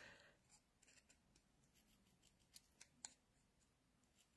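Faint snips of small craft scissors cutting white card, a few soft clicks about two and a half to three seconds in; otherwise near silence.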